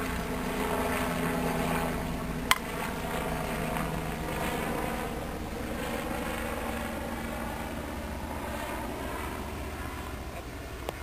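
A single sharp crack of a softball bat hitting a pitched ball about two and a half seconds in, with a fainter hit near the end. Under it runs a steady engine drone with wavering pitch that slowly fades.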